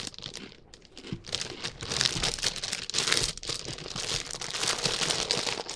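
Lay's potato chip bag crinkling as it is handled and rolled shut, a dense run of crackling that starts about a second in.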